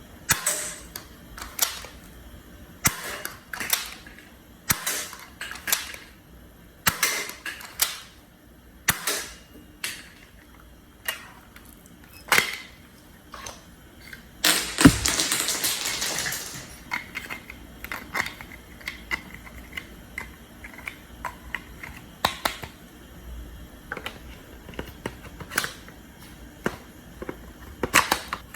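Plastic toy revolver shotgun being worked by hand: sharp mechanical clicks and snaps about once a second, with a longer rushing burst about halfway through, then fainter, scattered clicks.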